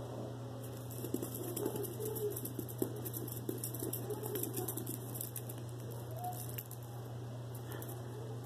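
Faint, rapid crackling and tapping over a steady low hum.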